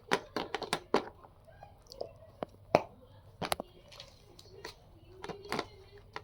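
A series of irregular sharp clicks and knocks, several in quick succession at the start and more scattered later, with faint voices between them.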